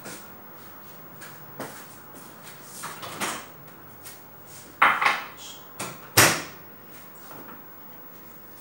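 Kitchen clatter: a handful of sharp knocks and bangs from things being handled in the kitchen, the two loudest about five and six seconds in.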